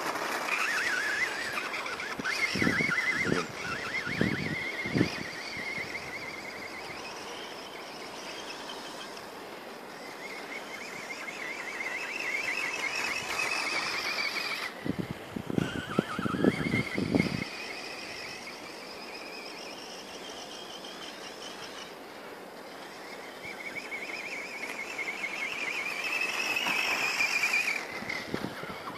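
Quanum Skull Crusher RC monster truck's brushless electric motor and geartrain whining, the pitch rising and falling with the throttle and the sound fading and coming back as the truck drives off and returns. Two clusters of short thumps come about three seconds in and again around sixteen seconds in.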